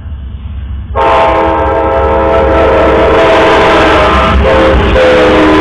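The horn of an approaching Amtrak locomotive, sounded as it nears a grade crossing. After a low rumble, it sounds a loud, sustained chord of several notes from about a second in, which breaks briefly about a second before the end and then resumes.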